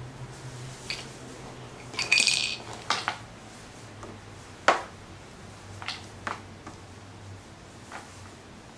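Small plastic capsule-toy figures being set down and moved about on a tabletop: a scatter of light clicks and taps, with a short clattery run of them about two seconds in.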